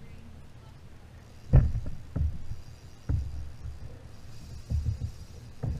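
Dull knocks and thumps on a kayak, five or so at irregular intervals, the loudest about one and a half seconds in.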